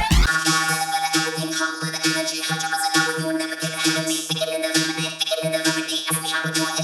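Electronic pop music breakdown: a synthesizer playing short repeated notes in a quick, even rhythm, with no deep bass.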